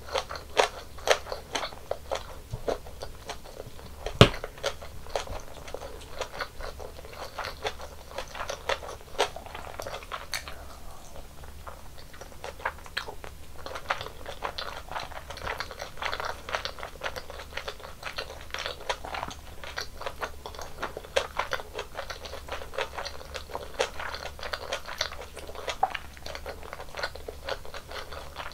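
Close-miked eating: a steady run of chewing and biting with many small wet clicks as the food is eaten, the tteokbokki and mini gimbap of the meal. One sharp louder knock about four seconds in.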